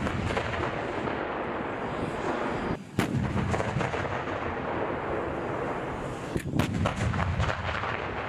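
Tanks on the move: a rough, steady rumble of heavy engines and tracks, broken by sharp bangs about three seconds and six and a half seconds in.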